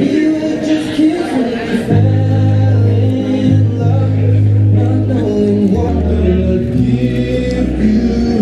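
A song with group singing over slow, held bass notes.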